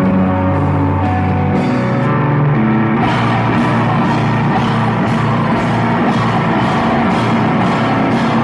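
Rock music with guitar and a steady drum beat, getting fuller about three seconds in.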